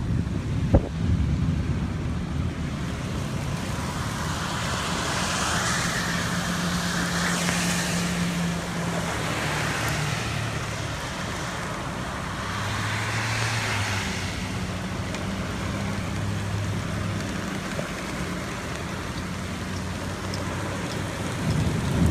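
Wind-driven rain beating on a car, heard from inside the cabin over the low hum of the idling engine. The hiss of the rain swells twice, a few seconds in and again around the middle, and there is one sharp knock about a second in.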